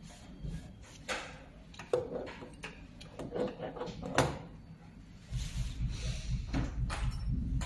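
Metal parts being handled and set in place: scattered clicks and knocks as the laser welder's metal lamp-cavity housing is fitted onto its mounting plate, the sharpest knock about four seconds in. A low rumble starts a little after five seconds and runs on.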